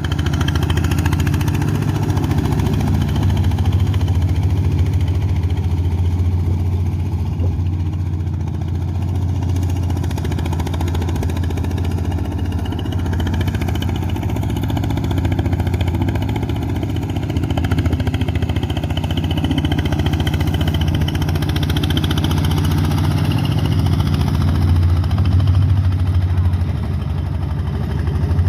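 Engine of a boat-type rice-paddy plough tractor (traktor perahu) running steadily at an even speed, a continuous low hum without breaks.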